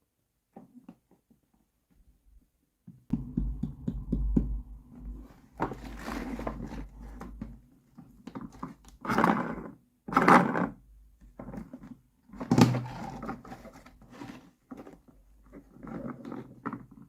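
Small plastic toy kitchen pieces handled and set down: irregular clicks, taps and knocks with rustling in between, the loudest knocks about nine, ten and twelve and a half seconds in.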